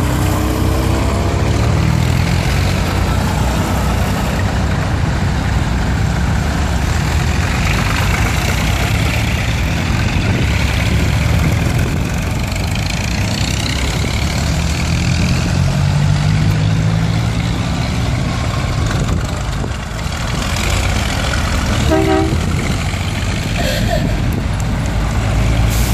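Vintage tractor engines running past one after another in a convoy, a steady low throb that swells and eases as each tractor goes by. A brief higher tone sounds near the end.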